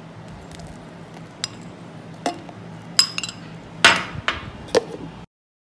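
A metal spoon clinking against a stainless-steel mixer-grinder jar about seven times while oil is added, some knocks ringing briefly; the loudest comes a little before four seconds in. The sound cuts off suddenly near the end.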